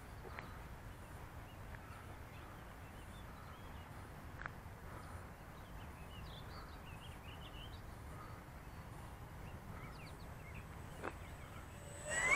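Birds chirping over a steady low rumble, then near the end the electric motor and propeller of a Parkzone T-28 Trojan RC plane whine loudly as it sweeps low and close past, the pitch rising fast.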